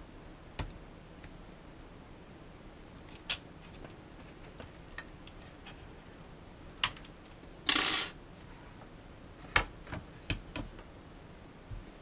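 Scattered small clicks and taps of a tool and small metal parts against the aluminium case and internals of a 2012 Mac Mini being taken apart, about eight in all, with one short louder scrape a little before eight seconds in.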